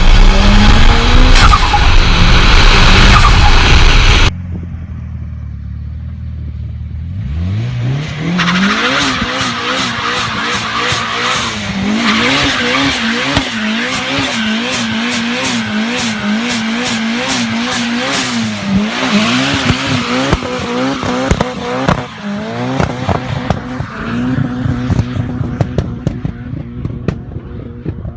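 Turbocharged car engines: first a very loud run at full throttle, then, after a cut, an engine revved up and blipped over and over, with a high-pitched turbo whistle and flutter chirp coming with each rev and throttle lift.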